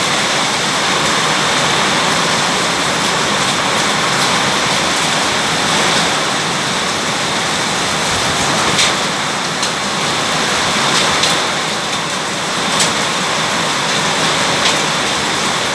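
Heavy rain falling steadily, a dense hiss with a few sharp ticks of drops striking hard surfaces.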